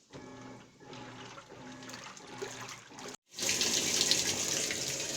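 Water rushing into a Roper washing machine as it fills on its clean-washer cycle, with a low steady hum under it. It breaks off sharply about three seconds in and comes back louder and hissier.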